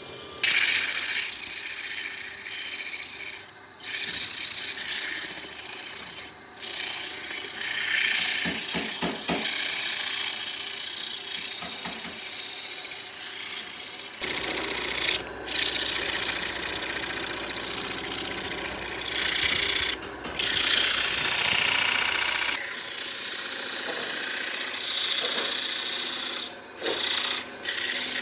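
Abrasive rubbing on wood: a steady, gritty scraping that stops briefly several times.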